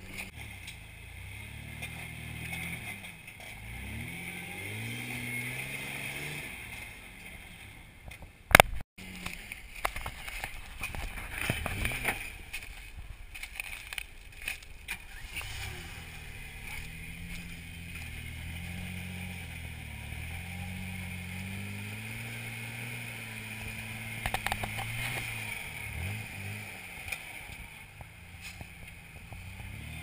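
Engine of a lifted rock-crawling truck running at low revs, its pitch rising and falling as it is throttled up and eased off while the truck climbs over boulders. A single sharp bang about eight and a half seconds in is the loudest sound, and scattered knocks and scrapes follow.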